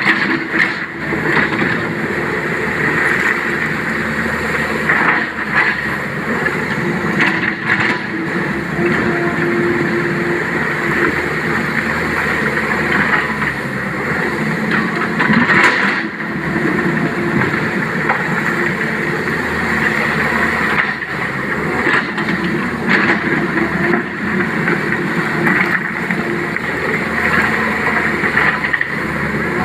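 Sany crawler excavator's diesel engine running steadily under load as it digs broken rock, with repeated knocks and clatter of stone against the steel bucket.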